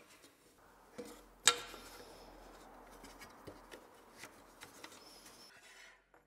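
Thin wooden strips being handled and set against a table saw's sliding carriage: a few light knocks and clicks of wood on wood and aluminium, the sharpest about a second and a half in, then small scattered ticks.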